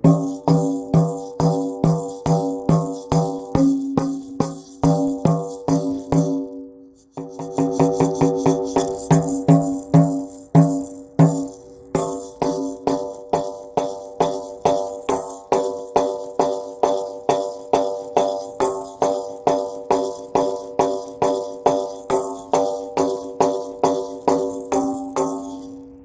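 Rhythmic clanging percussion: even, pitched strikes about three a second, each ringing briefly, with two short breaks, one about seven seconds in and one near twelve seconds.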